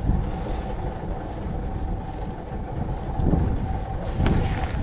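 Sailboat's inboard engine idling steadily, a low rumble with a faint steady hum above it.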